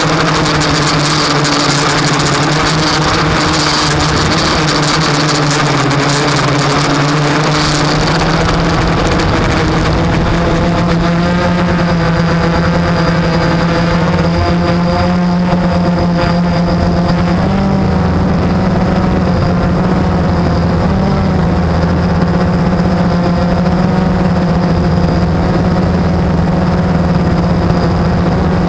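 Blade 350 QX quadcopter's brushless motors and propellers running steadily in flight, with small shifts in pitch as the motor speed changes. A loud hiss covers the motors for the first ten seconds or so, then fades and leaves the steady hum clear.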